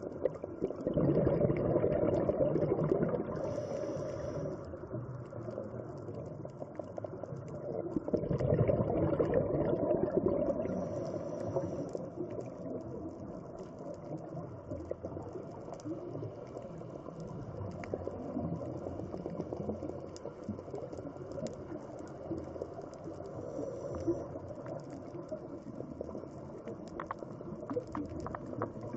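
Scuba regulator breathing heard through an underwater camera: two loud rumbling surges of exhaled bubbles, each a few seconds long and about seven seconds apart, each ending in a short high hiss, over a steady crackling underwater hiss with scattered clicks.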